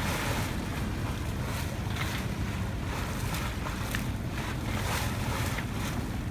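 Wind buffeting the microphone over the wash of water along a yacht's hull as it moves through the sea, steady with brief gusts.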